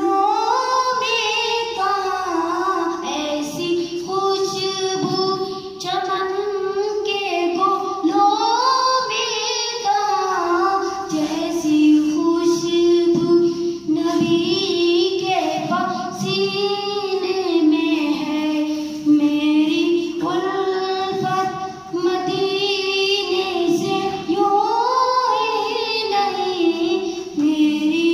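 A boy singing solo into a microphone, a song of long held notes that waver and slide in pitch.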